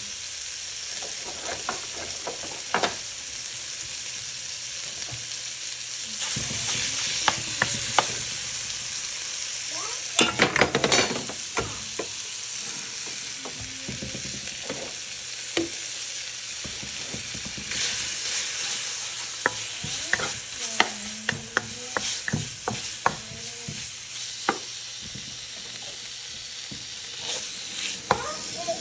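Bacon sizzling in a hammered steel wok, a steady hiss of frying fat. Sharp clicks and scrapes of chopsticks stirring the strips against the pan come in a dense cluster about a third of the way in and scattered through the second half.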